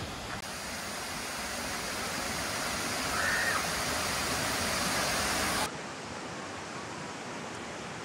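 Kravice waterfall's tufa cascades rushing: a dense, steady roar of falling water that grows slowly louder. About three-quarters through it drops suddenly to a quieter, more distant rush of water.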